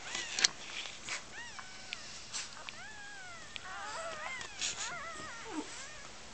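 Newborn Jack Russell terrier puppies squeaking and whining in short, high, rising-and-falling cries, several at once about four to five seconds in, with a few sharp clicks.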